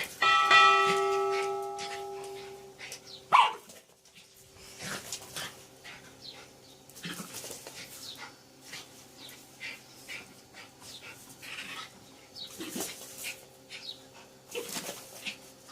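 A dog barking and yipping in short, scattered calls, apparently at a snake it is confronting. Near the start a ringing tone fades out over about two and a half seconds, and a sharp loud sound comes about three seconds in.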